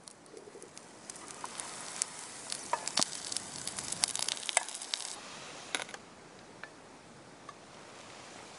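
Eggs frying in olive oil in a small nonstick pan: a steady sizzle with many small pops and clicks. The sizzle drops away about six seconds in.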